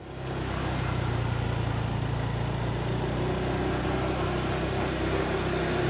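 Motorcycle engine running at a steady pitch while being ridden, over a steady rushing noise.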